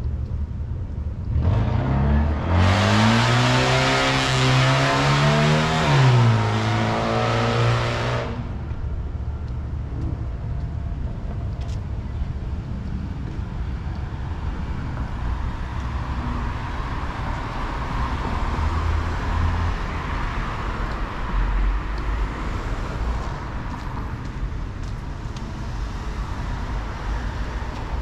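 A car drives past, its engine climbing in pitch as it accelerates, then dropping; it is loudest from about two to eight seconds in. Later a fainter vehicle goes by over a steady low traffic rumble.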